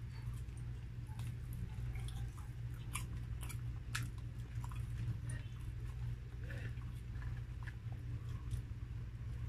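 Close-up chewing and biting of grilled chicken, with scattered sharp wet mouth clicks, over a steady low hum.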